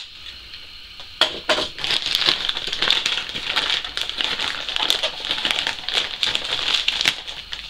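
A mail package's wrapping being torn open and handled: dense crinkling and crackling that starts suddenly about a second in.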